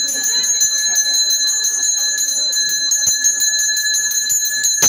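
Temple puja bell ringing rapidly and steadily, many strikes a second, as rung during an abhishekam of a Shiva lingam. A sharp knock near the end.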